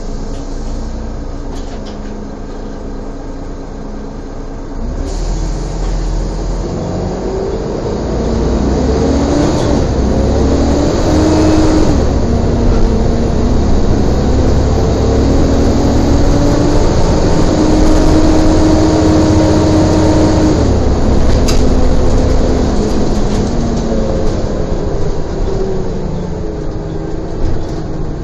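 Volvo double-decker bus with Alexander ALX400 body, its diesel engine and drivetrain pulling away about five seconds in. A whine rises in pitch, drops back at a gear change and rises again. It eases off a little after twenty seconds as the bus stops accelerating.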